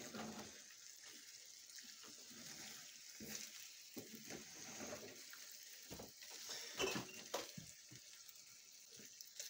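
Pelmeni frying in a pan in butter with a splash of water, a faint sizzle. A wooden spatula stirs them, scraping and tapping against the pan several times.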